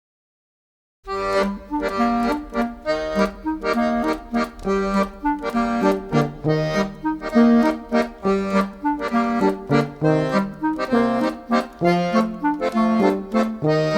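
Accordion music: a quick, even run of short repeated chords carrying a melody, starting about a second in.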